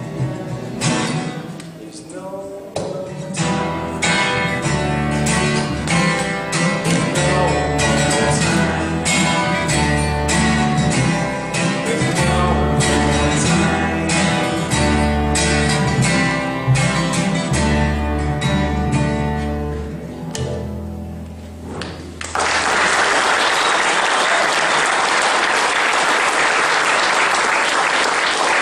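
Several acoustic guitars playing an instrumental passage, picked melody notes over a low bass line, until the song ends about 22 seconds in. Then the audience breaks into steady applause.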